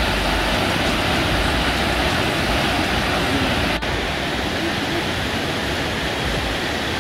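Steady rushing of an 18 m waterfall plunging into a pool, with a momentary break just under four seconds in.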